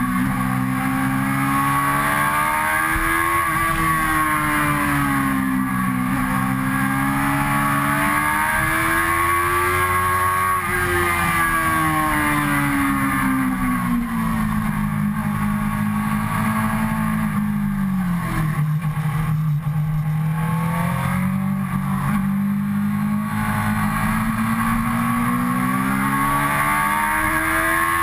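Suzuki GSX-R sportbike's inline-four engine under way, its note rising and falling in slow swells as the throttle is rolled on and off through bends, over a rush of wind noise.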